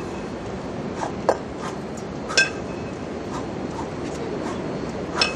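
A pair of 20 kg kettlebells clinking against each other a few times as they are worked through a double-kettlebell set, the clearest clink about two and a half seconds in with a brief metallic ring. A steady background hiss runs underneath.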